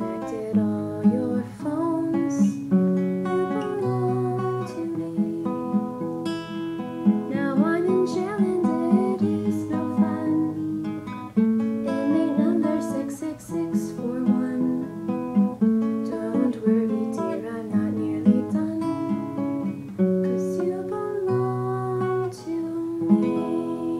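Acoustic guitar strummed and picked in a steady rhythm, with a woman singing over it.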